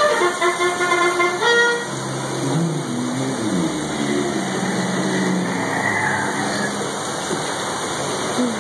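Dark-ride soundtrack playing over the ride's speakers: a stepping music melody for the first two seconds or so, then low, horn-like drawn-out tones that slide up and down in pitch over a steady rushing hiss.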